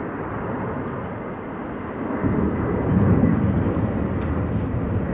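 Jet engines of a twin-engine widebody airliner climbing out after takeoff: a steady noise that swells into a deeper, louder rumble about two seconds in.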